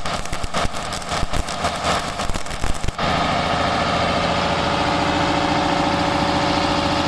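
Electric arc welding crackling and spitting, an irregular rapid crackle for about three seconds. It then cuts off abruptly to a steady, even mechanical hum with a fixed pitch.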